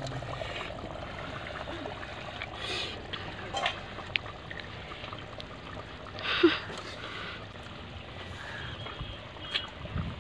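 A person sipping hot fish curry from a steel ladle: two short slurps, the second and louder about six and a half seconds in, with a few light clicks.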